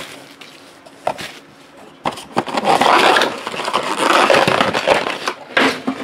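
Trading-card boxes and their plastic wrapping being handled: a click about a second in, then a loud stretch of crinkling and scraping for several seconds.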